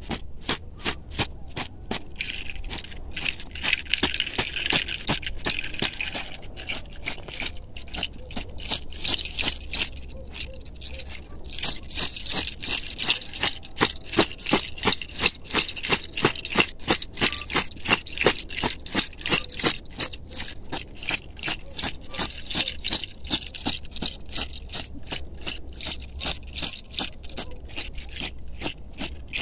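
A bundle of fresh medicinal plants swished and beaten rhythmically against a person's body and clothes, the leaves rattling with each stroke, about two to three strokes a second.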